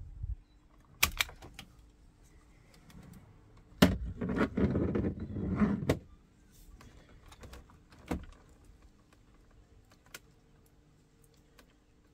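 An orange self-adjusting wire stripper clicks twice on a red power wire about a second in. From about four seconds in, the bundle of dashboard wiring rustles and scrapes for a couple of seconds as it is handled, the loudest part. A few single small clicks follow.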